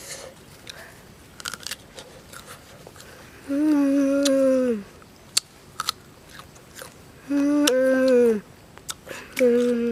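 A boy chewing crisp raw guava, with small crunching clicks, and three drawn-out hummed "mmm" sounds of about a second each, level in pitch and dropping as they end: a sign of enjoyment.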